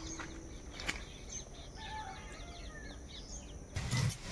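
Small birds chirping in quick short calls over quiet rural ambience, with one sharp click about a second in. Near the end it gives way suddenly to louder frying and stirring noise from a pan of mushrooms.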